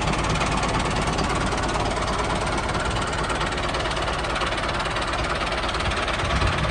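Miniature tractor's engine sound running steadily with a rapid knocking chug as the tractor drives off pulling a disc harrow.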